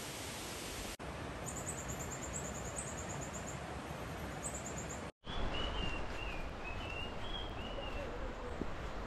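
A steady hiss of outdoor ambience with rapid, very high chirping trills. After an abrupt cut about five seconds in, a bird gives a series of short warbling calls.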